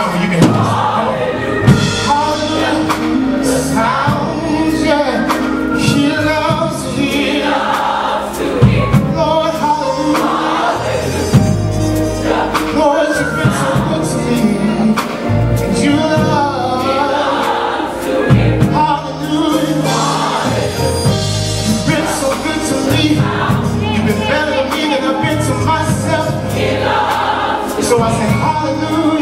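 Gospel choir song with sung voices over bass and drums.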